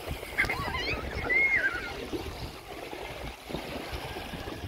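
Wind buffeting the microphone and low rolling rumble from a slow-moving open electric cart, with brief high-pitched calls between about half a second and two seconds in.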